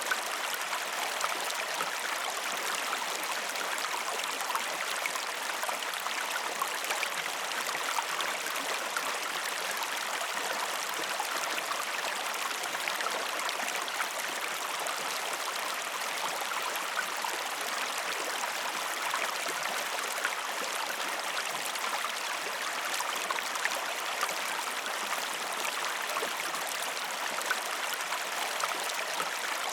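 A river flowing steadily, water babbling and trickling with small splashes and no letup.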